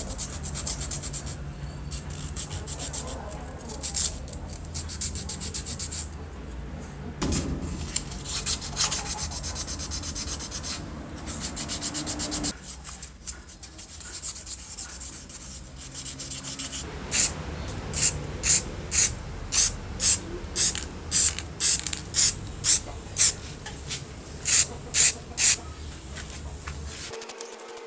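Sandpaper rubbing by hand over a small black plastic drill part in steady back-and-forth strokes. About two-thirds of the way in, this gives way to a run of about fifteen short hissing bursts, roughly two a second, from an aerosol spray-paint can coating the parts black.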